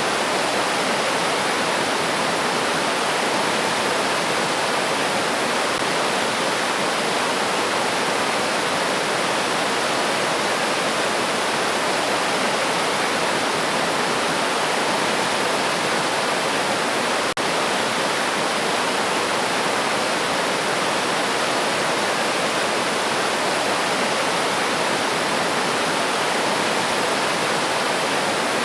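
River water rushing and splashing steadily over rocks, with a momentary dropout about two-thirds of the way through.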